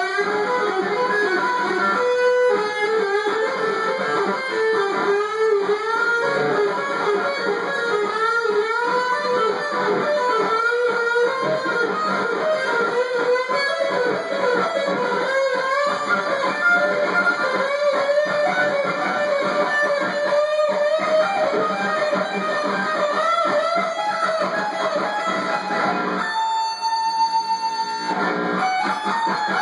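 Electric guitar, a solid-body SG-style, played as an improvised lead: runs of single notes with frequent string bends. Near the end the lower notes drop out for a couple of seconds while one higher note is held.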